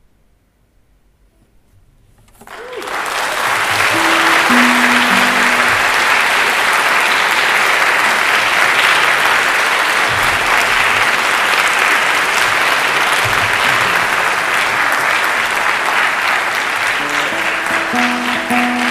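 Concert audience applauding, breaking out about two and a half seconds in after a hush and going on steadily. A few plucked classical guitar notes sound faintly under the clapping, once early on and again near the end.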